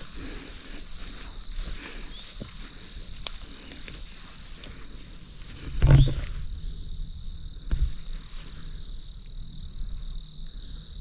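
Insects trilling steadily and shrilly; the loudest trill drops away about two seconds in. A loud thump comes about six seconds in and a softer one near eight seconds.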